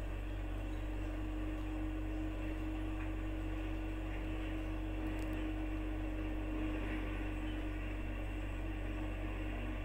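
Steady low hum with a faint steady tone above it, unchanging throughout.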